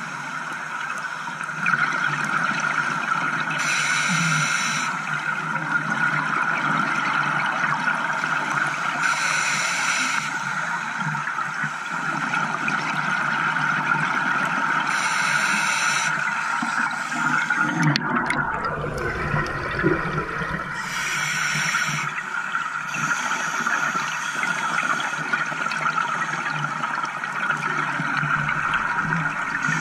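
Underwater sound of a scuba diver breathing through a regulator: a steady hiss, with a burst of hissing and bubbles on each breath about every five to six seconds. A deeper rumble of bubbles comes about two-thirds of the way in.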